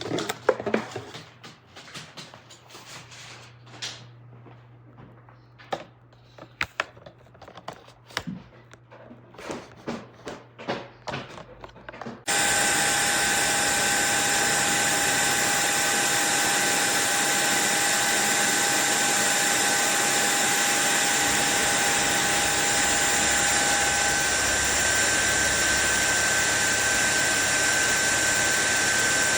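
Cordless stick vacuum cleaner handled with clicks and knocks, then switched on about twelve seconds in and running steadily with a high motor whine.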